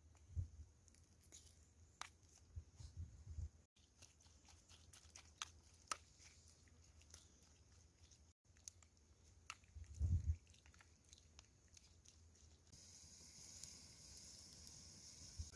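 Wooden spoon stirring a chilli, salt and paste sauce in a glass bowl: faint clicks and scrapes against the glass, with a few soft low thumps. Near the end a faint steady hiss comes in.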